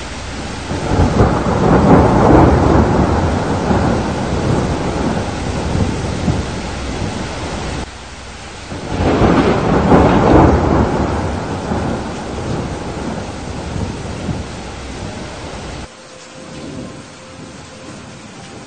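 Two long rolls of thunder over steady rain. The first breaks out at once and peaks about two seconds in; the second swells up about nine seconds in. Each fades slowly, then drops off suddenly, and near the end only the rain is left.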